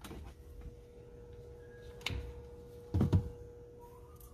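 Handling noises at an opened car dashboard: a sharp click about two seconds in and a heavier knock about three seconds in, over a faint steady tone.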